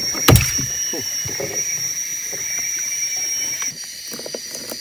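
Steady high-pitched drone of jungle insects. A single thump comes shortly after the start, and soft handling noises follow as a fish is worked out of a gill net.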